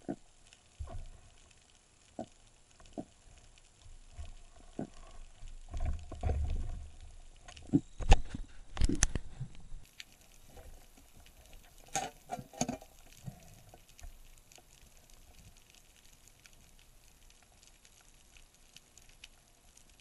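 Underwater handling noise heard through a camera housing: scattered sharp clicks and knocks from the speargun and diving gear, a low rumble of water movement about six seconds in, and the loudest knocks a little later.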